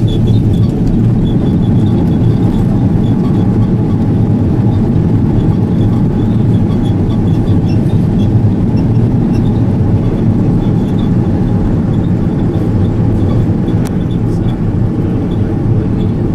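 Cabin noise of an Airbus A330-200 touching down and rolling out on the runway: a loud, steady rumble of engines, airflow and wheels, with the ground spoilers raised on the wing.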